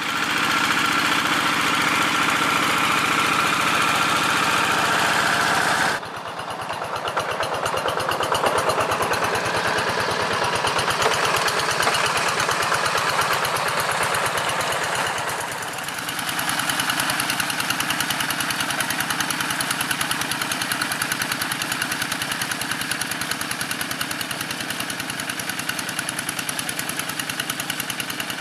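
Single-cylinder diesel engine of a two-wheel hand tractor running steadily with a rapid, even beat. It drops abruptly in loudness about six seconds in and runs on.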